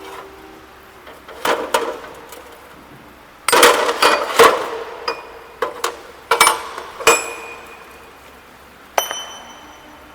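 Steel axle box parts being handled and knocked together: a string of metal clanks and clinks, bunched in the middle, with one strike near the end that rings on.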